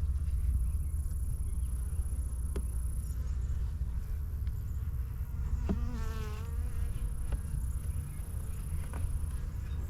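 Honeybees humming around an open hive, a steady low drone, with one bee buzzing close past the microphone about six seconds in, its pitch wavering as it passes.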